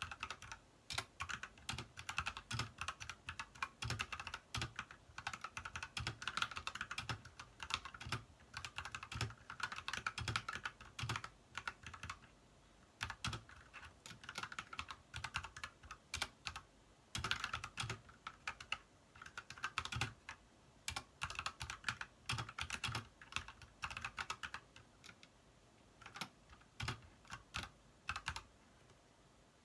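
Typing on an Ajazz mechanical keyboard fitted with new keycaps: quick, irregular key clacks in bursts with short pauses, stopping shortly before the end.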